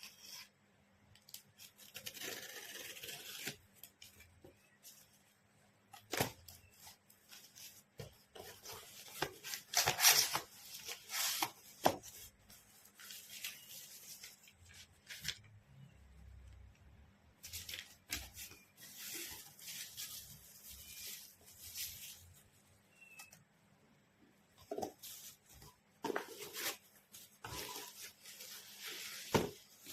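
Intermittent rustling and rubbing with a few sharp knocks, the sound of things being handled, over a faint steady hum.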